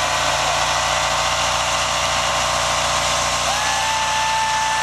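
Old full-size 4x4 doing a burnout: the engine is held at steady high revs while the rear tyres spin on the pavement, giving a loud, even, unbroken noise. A single held high tone joins in about three and a half seconds in and stops just before the end.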